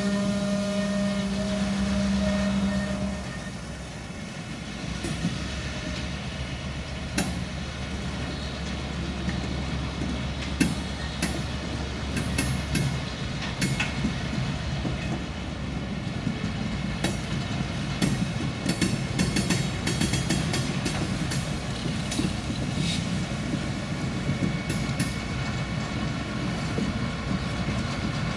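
A freight train of covered hopper cars rolling past, with a steady low rumble. A held tone sounds for the first three seconds and then stops. From about seven seconds in, the wheels make many sharp clicks and clanks over the rail joints.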